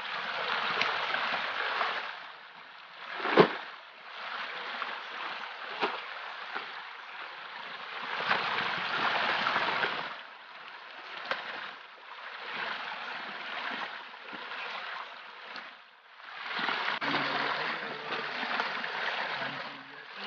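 Shallow stream water running over rocks, with a few knocks of a steel crowbar digging into rock and gravel, the loudest a sharp strike about three and a half seconds in.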